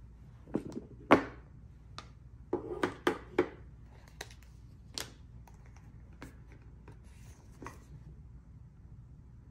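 Hands opening a small white cardboard jewellery box, lifting off the lid and handling the paper cards inside: a string of taps, scrapes and paper rustles, loudest about a second in and bunched around three seconds in, then sparser light ticks.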